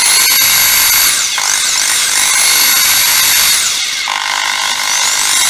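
Corded Makita 110 V, 400 W impact driver spinning free with no load. Its motor whine climbs to full speed, holds, then drops as the trigger is eased, about three times, showing off its variable-speed trigger.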